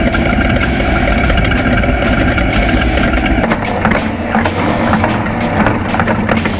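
Off-road race vehicle running hard over rough ground: engine noise under dense rattling and knocking. The sound changes abruptly about three and a half seconds in.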